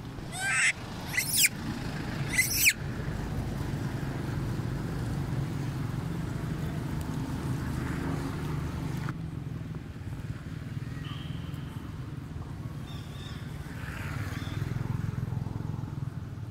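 A macaque shrieks three times in quick succession, short high-pitched screams, over a steady low hum.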